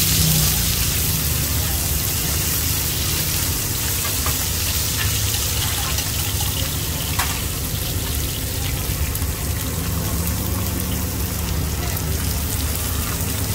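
Oil sizzling on a hot pan as mussels in batter fry crisp for hoi tod, a steady hiss with a few small clicks, over a steady low hum.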